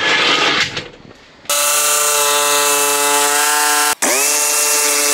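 Jigsaw cutting a corrugated plastic (core flute) sheet: the motor runs with a steady whine and buzz over a hiss. It breaks off for an instant near the middle, then spins back up and cuts on. A short scraping noise comes first.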